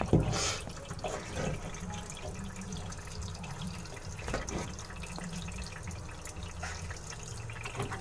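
Water draining out of a Whirlpool automatic washing machine through its drain valve, which the newly fitted drain motor has pulled open: a steady flow with drips, the sign that the drain fault is cured. A knock sounds right at the start and a lighter one about four seconds in.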